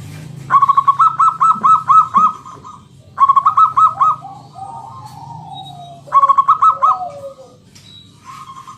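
Zebra dove (perkutut) cooing: three loud phrases of rapid, evenly repeated notes, the first the longest, with softer falling notes after the second and third.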